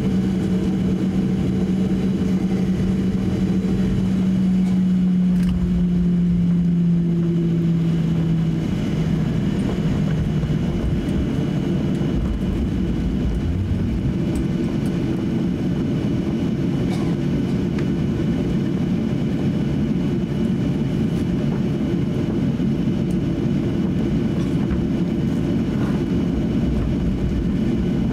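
Cabin noise of a Boeing 737-800 taxiing: the steady hum of its CFM56 jet engines at idle over a low rumble from rolling along the taxiway. A droning tone steps down slightly in pitch and fades out about eight to ten seconds in.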